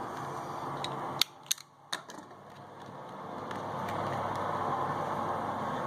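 Steady hiss of background noise. A little over a second in come a few sharp clicks with a short drop in level, and there is another sharp click at the very end.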